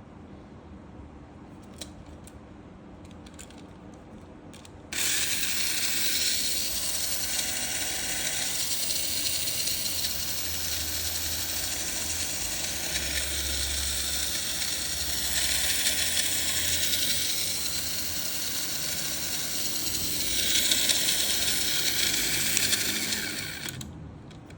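Tamiya Mini 4WD Magnum Saber Premium on its Super II chassis: a few faint clicks, then about five seconds in its electric motor is switched on and the motor and drivetrain gears run with a steady high-pitched whir, swelling slightly now and then, until it winds down near the end. This is the normal running sound of the car fully assembled, with the motor broken in and every point greased.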